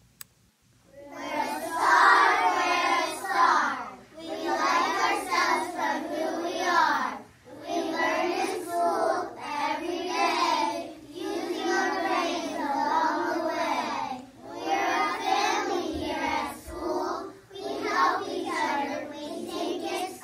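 A class of young children chanting a school chant together in unison, starting about a second in, in phrases broken by short pauses every few seconds.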